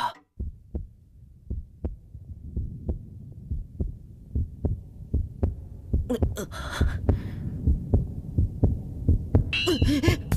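Cartoon heartbeat sound effect: low, evenly spaced thumps at about three a second, growing louder, standing for a flustered, pounding heart.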